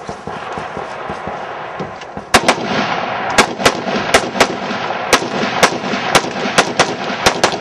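A rifle fitted with a muzzle compensator fires about a dozen sharp shots in quick succession, many in close pairs, starting a little over two seconds in.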